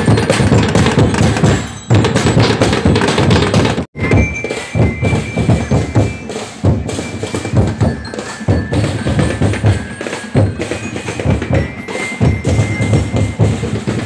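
Street percussion band drumming on plastic barrels and drums in a busy, steady rhythm with deep thumps. The sound cuts out for an instant about four seconds in, then the drumming goes on.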